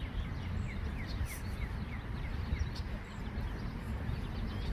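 A bird giving a run of short, falling chirps, about three a second, that stops about halfway through, over a steady low rumble of outdoor noise.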